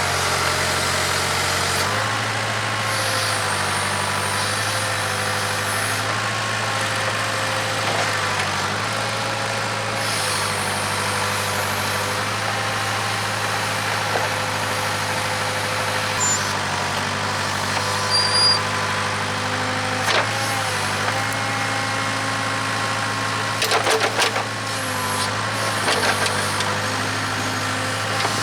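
Case 580K backhoe's engine running steadily under hydraulic load while digging, its pitch dipping and recovering slightly every few seconds. A few sharp knocks come late on, a short cluster of them about three-quarters of the way through.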